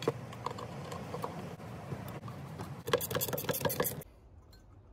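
Light metal clicks and a quick clatter of metal alternator parts being handled and bolted together, over a low hum. Then, about four seconds in, it turns nearly quiet with only faint ticks as the rebuilt alternator's rotor is spun by hand: on its new bearings it makes barely any sound, with no grinding.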